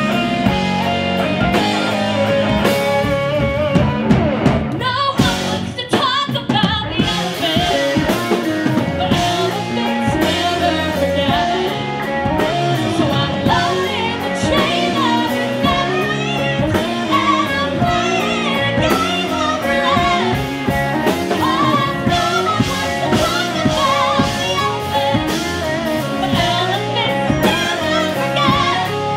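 Live band playing a song: electric guitars, bass, keyboard and drums, with a woman singing lead into a handheld microphone.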